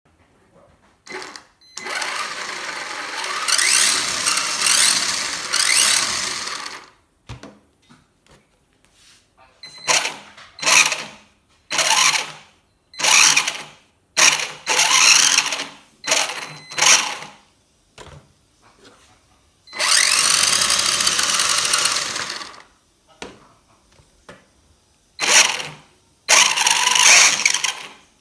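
RC car's electric motor and gearbox run in repeated bursts, some several seconds long and others short, whining in a rising and falling pitch with the gears grinding. This is the sign of a faulty drivetrain that leaves the car going very slow and is getting worse.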